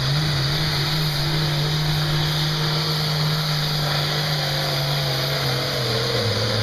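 Diesel pulling tractor running flat out under heavy load as it drags a weight-transfer sled, its engine note holding steady and then sagging lower near the end.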